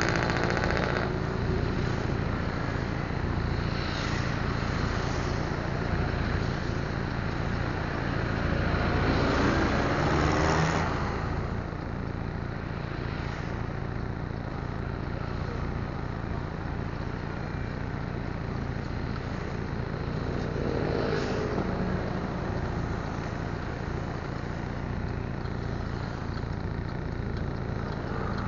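Street traffic: a steady low engine rumble, with vehicles passing by, the loudest about ten seconds in and again about twenty-one seconds in.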